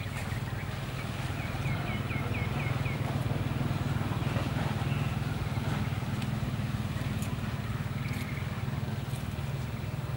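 A steady low hum like a distant engine, with a quick run of about seven high chirps about one and a half seconds in.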